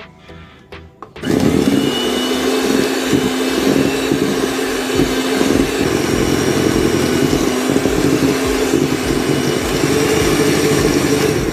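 Electric hand mixer switched on about a second in and running steadily, its beaters whirring through cake batter as the caramel is beaten into the whisked eggs and sugar.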